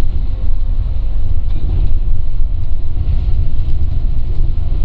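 Steady low rumble of a Scania coach's engine and tyres, heard from inside the moving bus.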